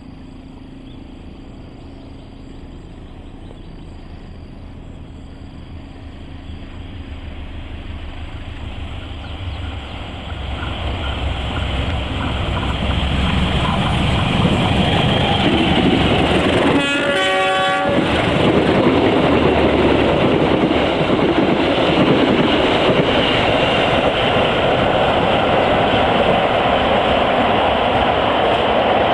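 Diesel locomotive of a passenger train approaching, its engine and wheels on the rails growing steadily louder until it is close and loud. A little past halfway it gives one horn blast of about a second, with several tones sounding together.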